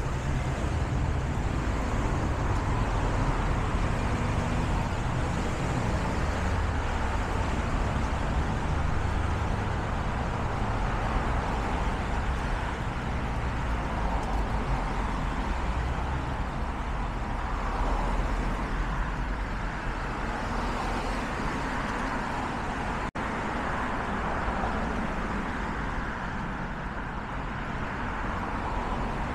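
Steady road traffic noise from cars and other vehicles passing along a busy city street. About three-quarters of the way through, the sound briefly drops out for a split second.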